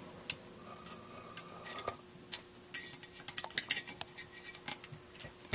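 Light metallic clicks and clinks of steel parts in a Marlin 1895 lever-action receiver as a small tool works the carrier loose and it is drawn out. The clicks are scattered, with a quick cluster about three and a half seconds in.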